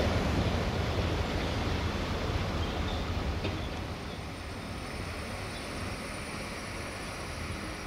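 Low rumble of a heavy vehicle passing and fading away over the first four seconds, then a steadier, quieter rumble.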